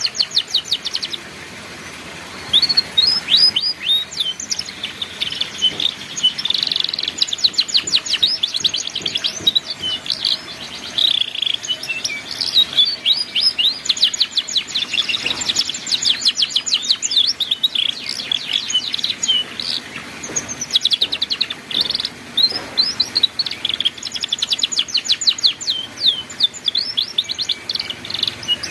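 Canary singing in the rapid chattering 'ngeriwik' style: fast runs of short, high chirps in phrases a few seconds long, with brief pauses between them.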